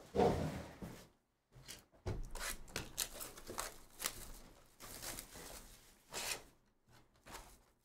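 Plastic shrink wrap being torn and crinkled off a cardboard trading-card hobby box in a run of short rustling tears, after a dull knock of the box being handled at the start.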